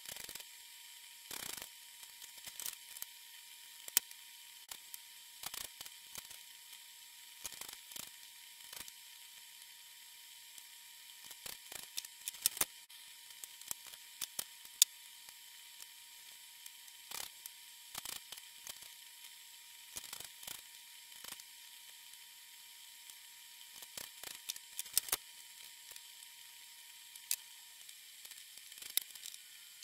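Sparse clicks, taps and light knocks from hand-assembling a flat-pack particleboard drawer, as its parts and screws are handled and fitted together. A faint steady whine runs underneath and fades out near the end.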